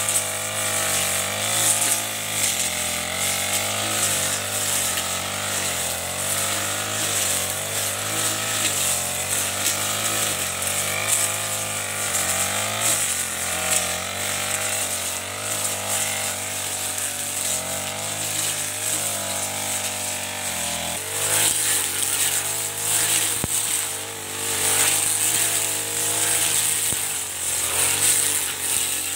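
Chinese-made Honda-type four-stroke backpack brush cutter running under throttle while its cutting head slashes through tall grass and weeds. The engine note wavers up and down as the load and throttle change.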